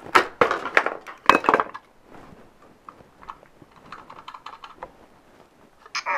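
A small plastic R2-D2 bobblehead being pulled free of its cardboard box and packaging: a cluster of sharp plastic clicks and rattles in the first two seconds, then light scattered taps as the figure is handled.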